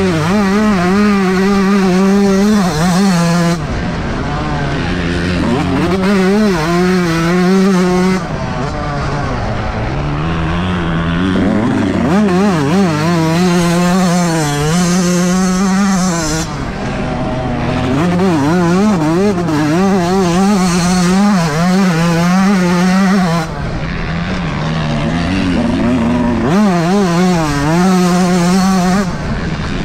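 Yamaha YZ125 two-stroke single-cylinder engine run at wide-open throttle. The revs climb and wobble in pitch, then drop off about five times as the throttle is closed.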